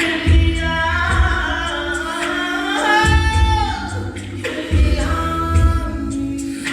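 Gospel song sung live over a backing track: a voice holding and sliding through long drawn-out notes, over sustained chords and a pulsing bass.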